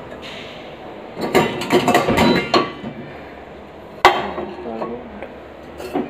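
Stainless-steel pots and a non-stick pan clattering against each other and the dishwasher's wire rack as they are handled. There is a run of clinks and knocks in the first half and one sharp metal knock about four seconds in.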